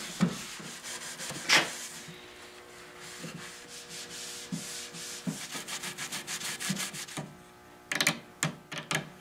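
Hand scrubbing and wiping a wooden chair with a soapy pad and rag: repeated scratchy rubbing strokes on the wood, with one sharper stroke about a second and a half in, washing the old oil finish off with dishwashing liquid. Near the end, a few short quick scraping strokes.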